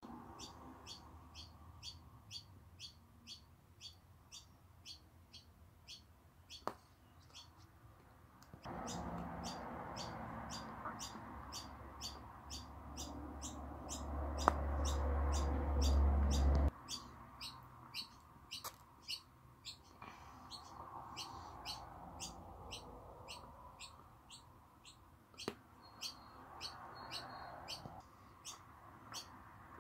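A bird chirping over and over at an even pace, about two to three short high chirps a second. In the middle comes a stretch of noise with a low rumble, the loudest part, that cuts off suddenly.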